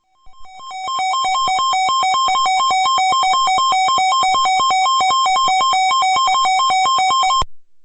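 Sangean CL-100 weather radio's alert tone: an electronic beep that warbles rapidly back and forth between two pitches. It swells in over the first second and cuts off suddenly near the end. It is the radio's alarm that a warning is being broadcast.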